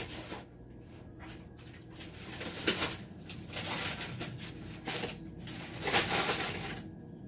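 Cookware and utensils being handled: irregular rustling and scraping in short bursts, the loudest about six seconds in, over a low steady hum.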